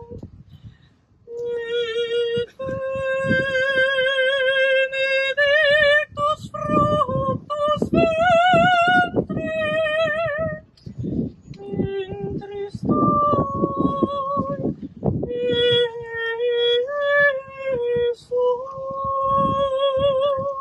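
A woman singing solo and unaccompanied, a slow melody of long held high notes with vibrato.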